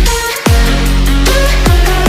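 Background electronic dance music with heavy bass: two deep bass hits that drop steeply in pitch, about half a second in and near the end.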